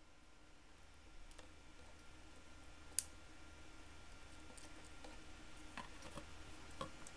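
Faint clicks and handling noises from a hard plastic mini grinder (rotary tool) being turned over in the hands, with one sharp click about three seconds in; the tool is not running.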